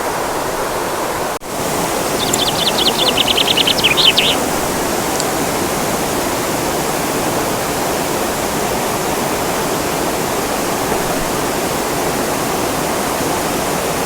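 Steady rush of waterfall water cascading over rocks. From about two to four seconds in, a rapid high trill of chirps sounds over it.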